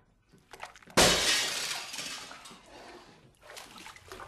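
Glass smashing: one sudden loud crash about a second in, trailing off over about two seconds.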